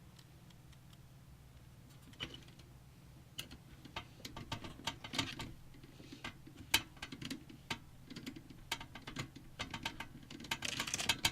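Irregular light clicks and taps of hands working a case fan and its screw into a PC case. They start about two seconds in and grow busier toward the end.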